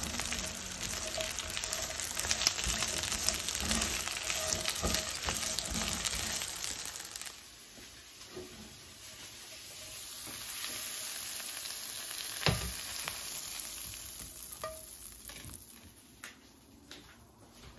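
Shrimp sizzling in hot olive oil with garlic in a frying pan, with small clicks as they are stirred. The sizzling cuts off abruptly about seven seconds in, leaving a quieter hiss and one sharp knock a few seconds later.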